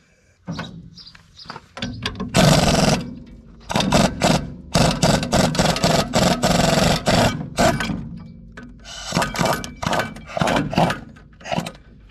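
Pneumatic impact wrench hammering in repeated bursts, the longest about two seconds, as it works the knife bolts off a New Holland 790 forage chopper's cutterhead; the bolts are tight, set at around 300 foot-pounds.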